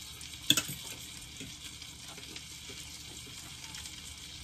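Steady sizzle of a hot frying pan that has been searing steak, with one sharp click about half a second in.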